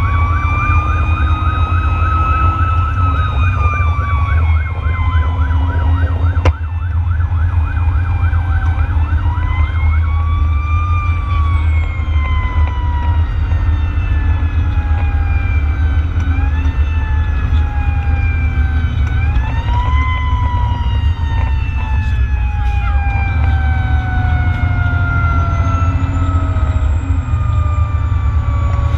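Fire engine siren wailing: the pitch climbs quickly several times and falls slowly between climbs, over a loud, steady low engine drone. For about the first six seconds a second, fast warbling siren tone runs alongside, then cuts off with a click.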